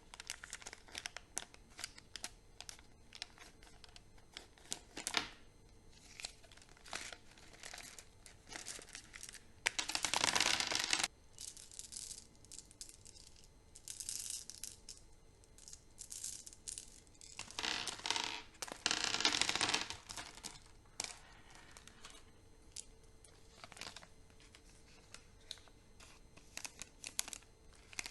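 Chocolate wrappers crinkling and tearing as sweets are unwrapped by hand, in many small crackles. Two longer, louder bouts of tearing and rustling come about a third of the way in and again about two-thirds in.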